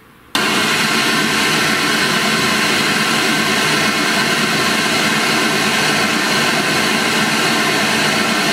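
Oris GR-658 midrange car speaker playing a loud, steady test noise, an even hiss across the whole range, switched on about a third of a second in.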